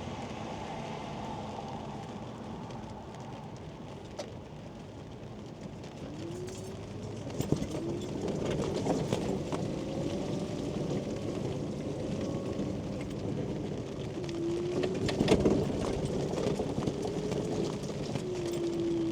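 Electric motor of a Quingo Toura Mk2 mobility scooter whining, its pitch rising and falling as the speed changes, with rain falling on the scooter's canopy. The whine grows louder about six seconds in.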